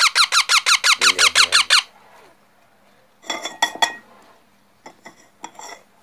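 Baby parakeet giving a fast, loud run of squeaky begging calls, about seven a second, each call falling in pitch, while being hand-fed; the calls stop about two seconds in. A few short, quieter clicks and rasps follow later.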